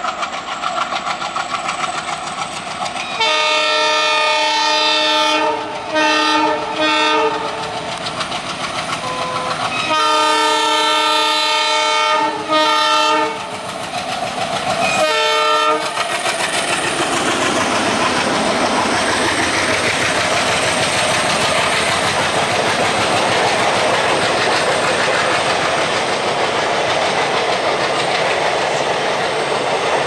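Indian Railways WDM3-class diesel locomotive working hard up a steep grade. Its multi-tone horn sounds a long blast about three seconds in, two short toots, another long blast around ten seconds, then two more short toots. From about sixteen seconds the locomotive passes close and the coaches roll by with wheels clattering over the rail joints.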